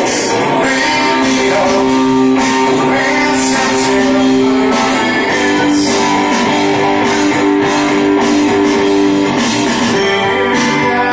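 Live rock cover played through PA speakers: a man singing into a microphone over an electric guitar.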